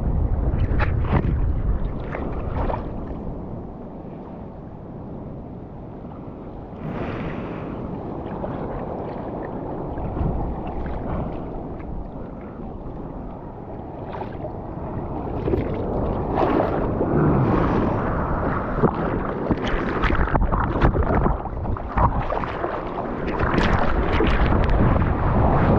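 Seawater splashing and rushing over a surfer's action camera, with surf washing and wind buffeting the microphone. It eases off for a while, then grows louder about halfway through, with many sharp splashes.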